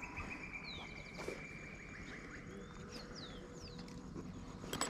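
Birds calling: a rapid trill of short chirps in the first half and several brief descending whistles, with one sharp click near the end.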